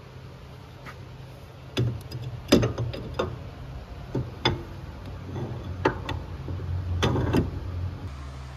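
About eight sharp, irregular clicks and knocks of tools and parts being handled during hand work on an ATV axle, over a steady low hum.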